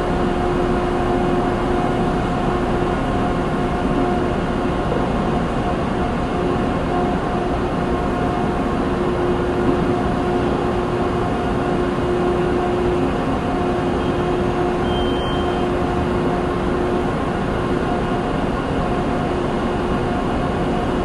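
Manufacturing plant ambience: machinery running as a steady, dense din with a constant hum.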